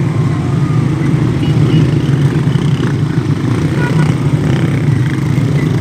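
A column of many small motorcycles riding past close by on a dirt track, their engines making a dense, steady drone.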